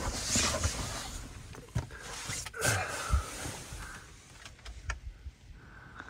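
Handling noise from a camera being moved about inside a van: fabric rustling with scattered clicks and several soft low knocks.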